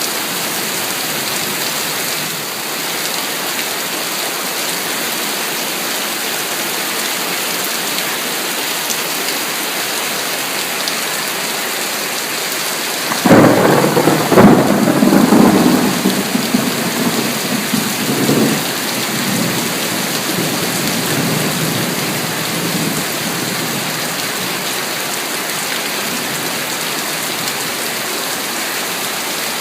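Heavy rain falling steadily, with a close thunderclap about halfway through: a sudden sharp crack, a second crack a second or so later, then a rumble that rolls on for several seconds and fades back into the rain.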